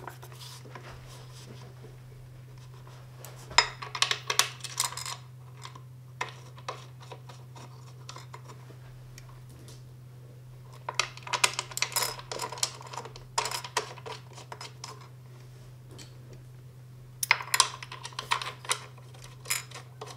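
Metal and plastic office-chair parts being handled and fitted together: three bursts of clicking, rattling and scraping as the backrest bracket is lined up on the seat mechanism for its screws, over a steady low hum.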